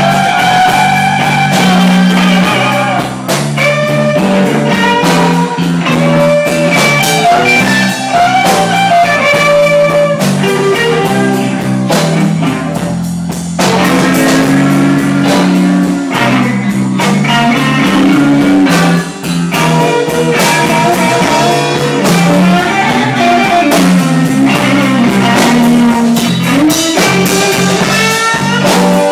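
Live blues band playing a slow blues, with an electric guitar lead playing bent notes over the band's drums.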